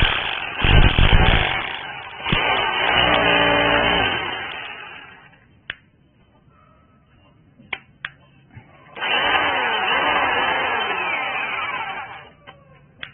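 Electric hammer drill running in two bursts. The first lasts about five seconds and winds down with a falling pitch. After a quiet gap with a few clicks, a second run of about three seconds starts about nine seconds in.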